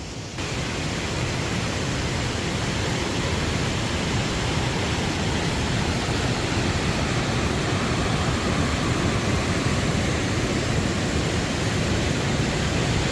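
Waterfall: steady rushing water that sets in abruptly about half a second in.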